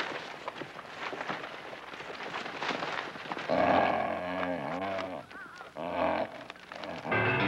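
A pack of dogs growling and barking in a scuffle. It starts with rustling and footfalls, and the loud pitched calls break out about halfway through. Music comes in near the end.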